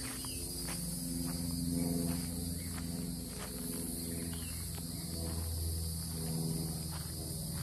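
Steady high-pitched insect chorus, with footsteps on gravel about every two-thirds of a second.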